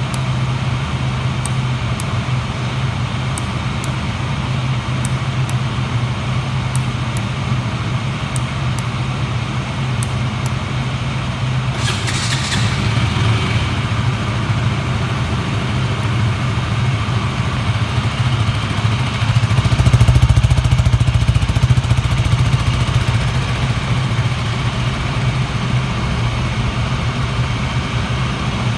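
Stock-exhaust KTM 200 single-cylinder four-stroke motorcycle engine idling steadily. A short hiss comes a little before halfway. About two-thirds of the way through, the engine note turns deeper and louder for a couple of seconds.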